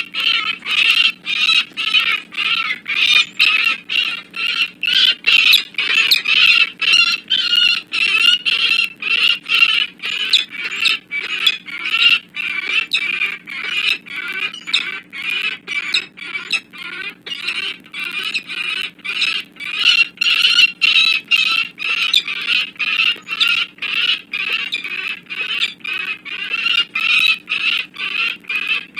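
Peregrine falcon calling over and over, a repeated cacking alarm call at about two calls a second with no break. The calls are agitation during a fight between rival males.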